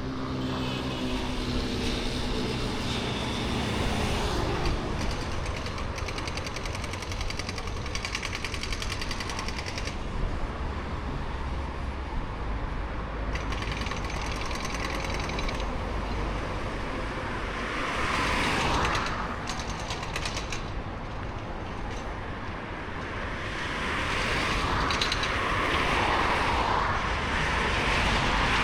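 Passing road traffic, with a fast machine-like rattle in the first half and vehicles swelling past in the second half.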